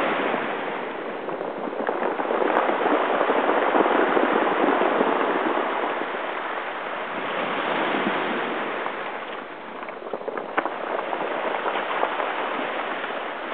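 Ocean surf breaking and washing up a cobblestone beach, the rush of water swelling and ebbing with each wave. A few sharp clicks come about three-quarters of the way through.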